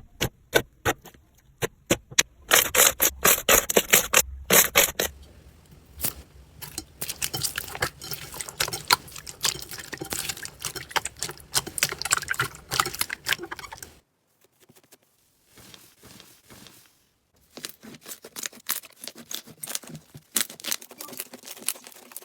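Slime being squeezed and poked by hand: a run of sharp popping clicks, then dense crackling squishes, with a short silent pause about two-thirds of the way through before the crackling resumes.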